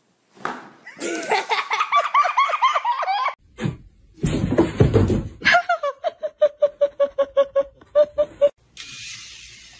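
People laughing: a stretch of rapid high giggling, then a loud low rumble, then a long run of even 'ha-ha' laughs, about four a second.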